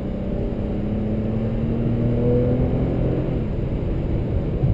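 Inside the cabin of a 2011 Chrysler 200 on the move: steady road and tyre rumble, with the engine's hum rising slowly in pitch as the car gathers speed, fading into the road noise about three seconds in.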